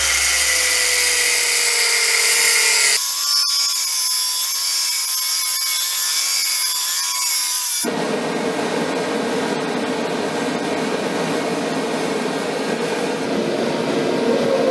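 Workshop power tools running in three cut-together clips: first a motor whining and dropping in pitch, then a tool running with a wavering whine from about three seconds in, then a steady rushing noise from about eight seconds in.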